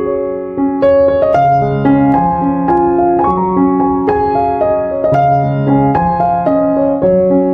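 Background keyboard music with a piano sound: a slow melody of held notes over a low bass line, the notes changing about every half second.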